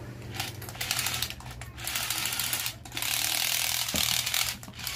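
Remote-controlled toy fighting robot's small motor and plastic gears whirring with a fast ratcheting clatter as the remote's buttons are pressed. It comes in three bursts of about a second or more each, with short breaks between.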